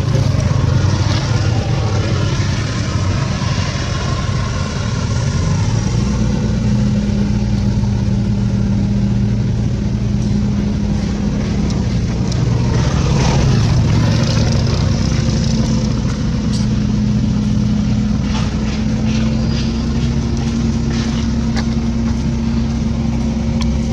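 An engine running steadily at a low, even pitch, its note shifting slightly a few times.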